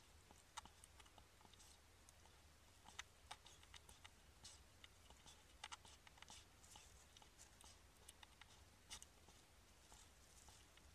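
Faint, irregular crackling and rustling of dry hay as a hedgehog shifts in its straw nest, with a steady low hum underneath.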